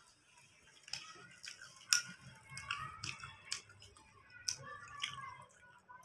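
Eating with the hands: chewing and tearing puffed bhature, with several sharp clicks and taps against steel plates.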